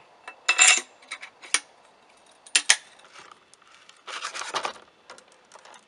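Handling noises at a shooting bench: sharp metallic clicks and clinks from a break-action 12-gauge shotgun and its caliber adapter insert. About four seconds in comes a rattling rustle as .44 Magnum cartridges are dug out of their packaging.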